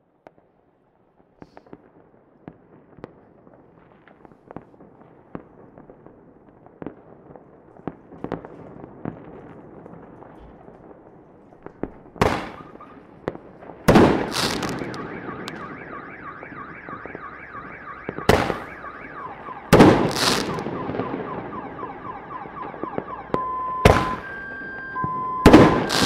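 Fireworks: scattered faint pops and crackling build up over the first half, then loud individual bangs with long echoing tails follow every second or few seconds. Near the end, a two-tone beeping alternates between a lower and a higher pitch.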